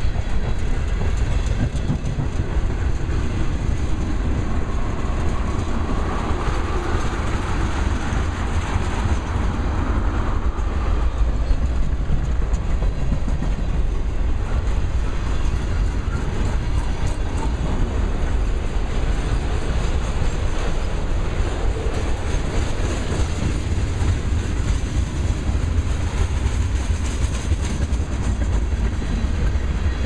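Freight cars of a mixed manifest train (covered hoppers, tank cars and autorack cars) rolling past on steel rails: a steady rumble of wheels on track.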